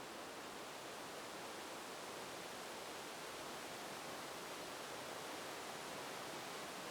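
Wind blowing steadily, an even hiss that neither gusts nor fades.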